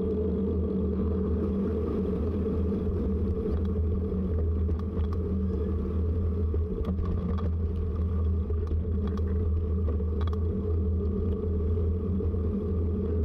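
Steady low rumble with a few faint clicks, the road and wind noise of riding a bicycle.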